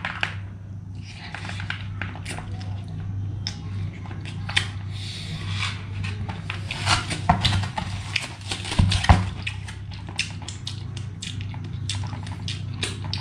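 Close-up chewing of a big mouthful of food eaten by hand: many wet clicks and smacks from the mouth, over a steady low hum.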